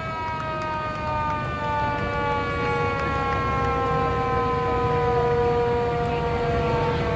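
Fire-rescue vehicle siren in one long, slow wail falling gradually in pitch, with a second steady siren tone joining about three seconds in, over the low rumble of the passing trucks.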